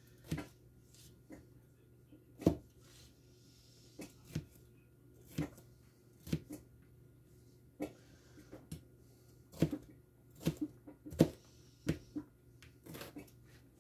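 Knife knocking on a cutting board while dicing green pepper: single sharp knocks at uneven intervals, a few coming closer together in the second half.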